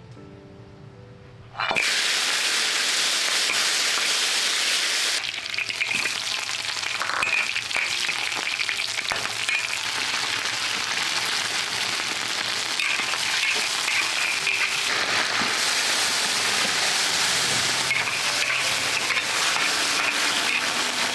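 Food frying and sizzling in hot oil. It starts suddenly about two seconds in, as food goes into the hot pan, and keeps up a loud, steady sizzle.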